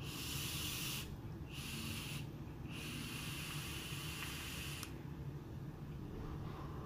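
Hiss of a long drag on a Smok Skyhook vape set to 60 watts, air drawn through the airflow past the firing coil, in three pulls with short breaks between them. After that comes a quieter exhale.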